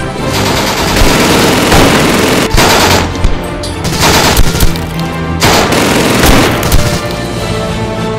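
Machine-gun and rifle fire in long, rapid bursts with short breaks, over background music.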